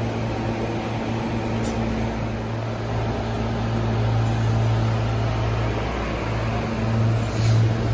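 SEPTA Silverliner V electric multiple-unit railcar standing at the platform, its electrical and air-conditioning equipment giving a steady low hum with blower noise.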